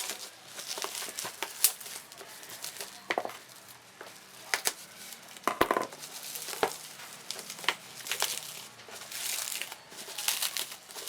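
Plastic packaging crinkling and rustling as it is handled, with scattered sharp clicks and taps of small hard pieces.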